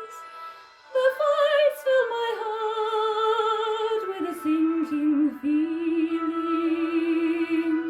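A woman singing long held notes with vibrato in an operatic style, with no words. After a brief drop about a second in, the melody steps down and settles on a lower held note.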